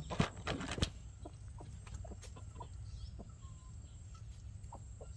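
Chickens clucking in short, scattered calls. The calls are loudest and most crowded in the first second, then come singly and more softly.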